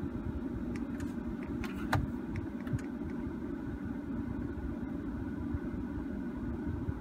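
Steady low rumble of a car idling, heard inside the cabin, with a few light clicks between about one and three seconds in, the loudest about two seconds in.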